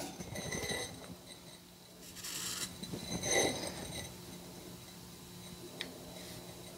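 Felt-tip marker scratching faintly across a flat steel bar in a few short strokes, with one small click near the end, over a steady low hum.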